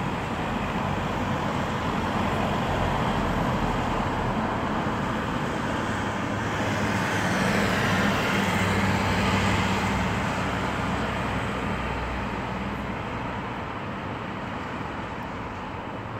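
Street traffic noise: vehicles on the road below and a steady low engine hum. It swells midway, then slowly fades.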